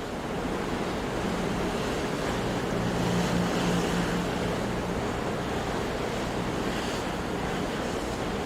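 Ocean surf washing ashore: a steady rush of breaking waves that swells a little about three seconds in and again near the end.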